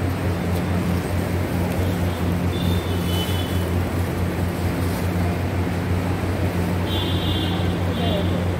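Steady low mechanical hum with no break, with faint high-pitched chirps about three seconds in and again near the end.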